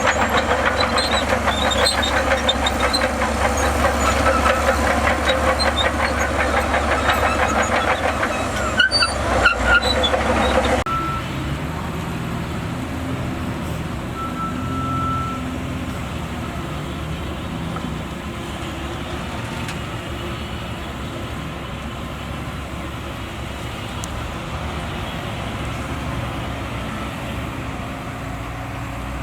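Heavy diesel earthmoving machinery working, loud and clattering for the first ten seconds or so, then cutting abruptly to a quieter, steady engine running.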